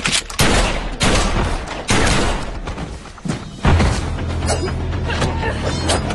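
Film action soundtrack: three loud pistol shots in the first two seconds, each with a fading echo. Then, from a little past halfway, a heavy, steady bass music score comes in.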